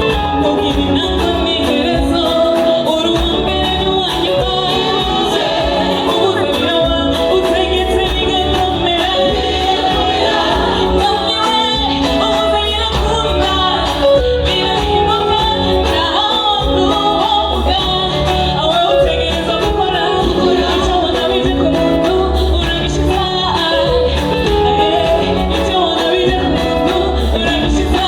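A gospel song: a voice singing a melody over instrumental accompaniment with steady bass and a regular beat.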